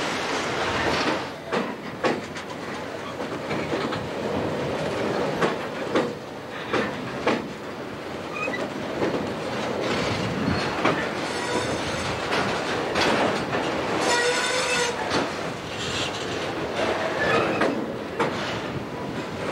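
Norfolk Southern freight train's cars rolling past close by, wheels knocking and clicking over the rail joints under a steady rumble. About fourteen seconds in there is a brief, high-pitched squeal lasting about a second.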